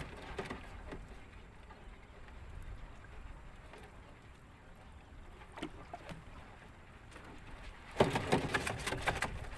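A lobster bottom net being hauled by hand over the side of a small wooden boat: a low steady rumble of water and wind, a few scattered knocks, then a short burst of clattering and splashing about eight seconds in as more net comes over the gunwale.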